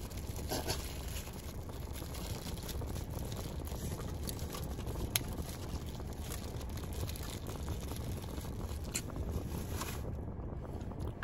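Steady low hum of a car's interior, with a few faint clicks and rustles of food being handled, one sharper click about five seconds in.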